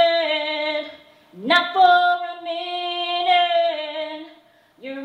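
A woman's voice singing long held notes with little or no accompaniment, in phrases broken by a short pause about a second in and another near the end, sliding up into the second phrase.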